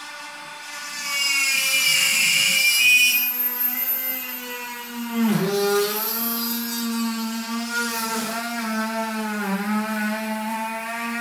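Electric drill boring a 3 mm pin hole into a wildebeest's atlas bone: a steady motor whine that comes up to full speed just under a second in. The pitch dips briefly about five seconds in and again a couple of times later, and a high hiss rides over it during the first few seconds.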